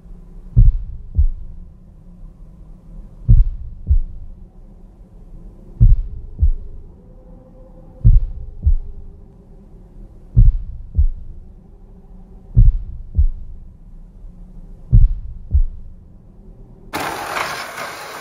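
Slow heartbeat sound: pairs of deep thumps about every two and a half seconds over a faint low drone. About a second before the end, a sudden burst of louder, denser sound with shifting pitches cuts in.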